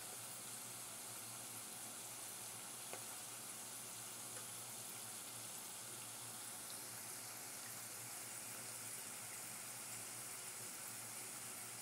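Sliced potatoes deep-frying in a pan of hot oil: a steady sizzle with a couple of small pops.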